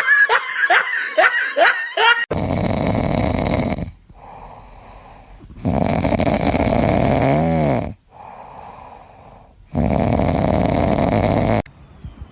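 Heavy snoring: three long, loud, noisy breaths about four seconds apart, with quieter breaths between. It opens with a quick run of short, high, squeaky calls.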